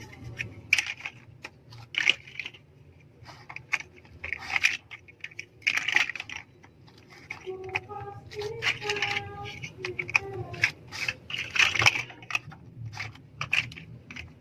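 Plastic LEGO pieces clicking and rattling as they are handled and pressed together, a long string of short sharp clicks.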